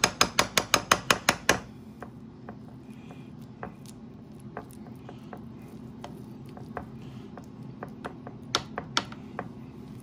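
A serving spoon patting and spreading a rice, broccoli and cheese casserole in a glass baking dish: a quick run of about ten sharp taps in the first second and a half, then scattered lighter clicks, with a few louder ones near the end. A steady low hum runs underneath.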